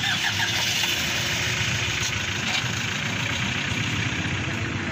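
An engine running steadily, a low rumble under an even hiss.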